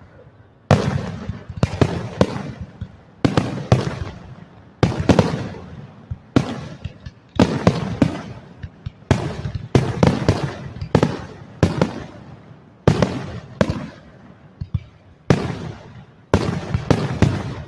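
Fireworks display: aerial shells bursting in a steady barrage of sharp bangs, about one to two a second, each trailing off. The bursts are heavy enough to be felt in the chest.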